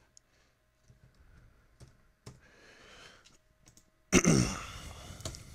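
Computer keyboard being typed on, with sparse soft key clicks as a command is entered. About four seconds in there is a brief, louder breathy sound from the typist.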